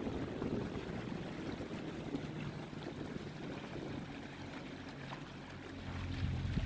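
A boat's motor running steadily with water noise around it, a low hum that swells a little near the end.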